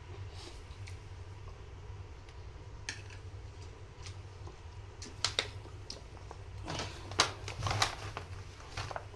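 Spoon and plate clinks and light clatter from eating a meal, a few scattered at first and a denser run of clicks about seven to eight seconds in, over a steady low hum.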